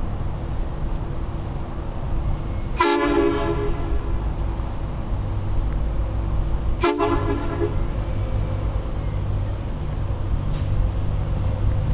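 Car-mounted three-trumpet air train horn, fed from the car's air-ride system, sounding two short blasts about four seconds apart, each about a second long. The blasts are a chord of several tones, over a steady low rumble.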